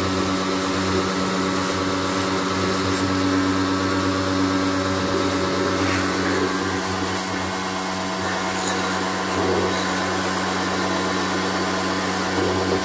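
Electric pressure washer running steadily, its motor and pump giving a constant hum under the hiss of the water jet.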